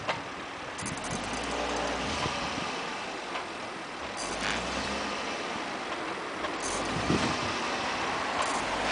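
Volvo S80 on the move, heard from its left side mirror: steady road and wind noise with a few short knocks, the strange knocking sound the owner is trying to record.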